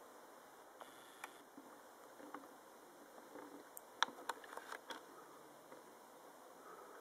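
Kerosene tower heater burning quietly: a faint steady hiss with scattered sharp ticks, several of them close together about four to five seconds in.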